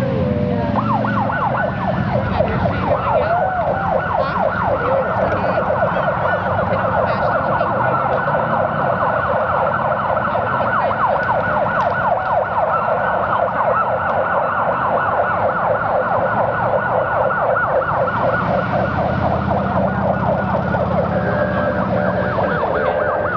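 Several police motorcycle sirens sounding together in a fast, overlapping yelp, after a couple of slower wailing sweeps in the first seconds, over the low running of the motorcycles' engines.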